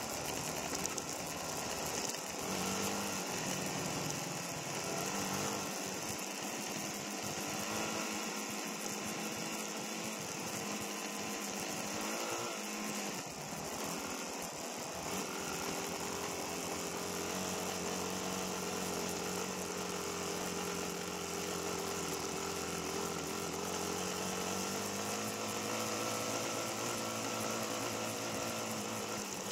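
Single-cylinder four-stroke dirt bike engine running, its pitch shifting with the throttle in the first half and holding steadier from about halfway.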